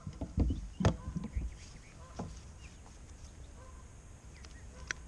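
Dull knocks and thumps of a bass being handled and unhooked in a plastic kayak, bunched in the first second and a half, then one more knock a little after two seconds and a sharp click near the end.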